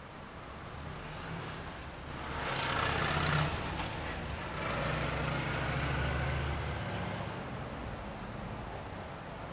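A motor vehicle passing close by: a low engine hum with tyre and road noise that swells twice, peaking about three seconds in and again around six seconds, then fades away.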